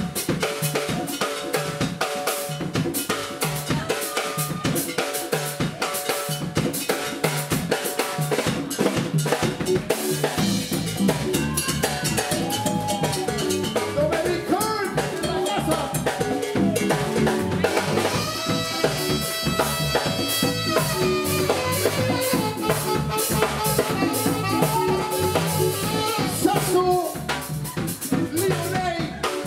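Live Latin band playing: drum kit and hand drums keep a busy rhythm throughout, with saxophone melody over it from about the middle, including some long held notes.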